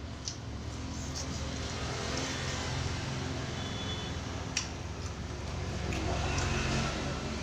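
A low, steady rumble like passing road traffic, growing louder over the last few seconds, with a few sharp clicks.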